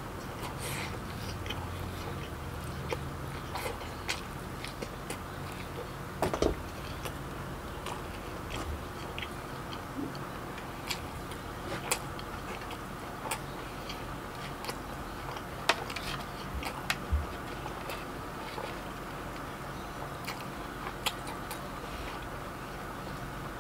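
A person chewing and biting food, with scattered sharp mouth clicks and smacks over a faint steady background hum.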